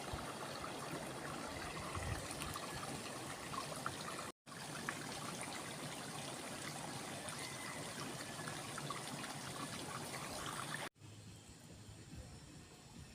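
Stream water running and trickling, with a brief cut to silence about four seconds in. Near the end it drops suddenly to a quieter hiss.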